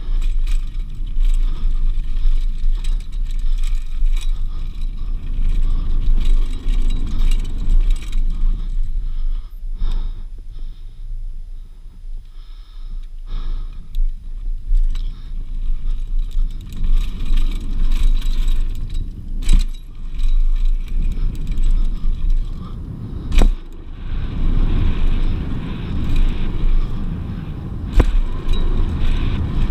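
Wind buffeting an action camera's microphone and mountain-bike tyres rolling over a dirt trail on a fast downhill run, with the bike rattling and scraping and a few sharp knocks as it hits bumps. The noise drops for a few seconds in the middle, where the ride slows through the berms.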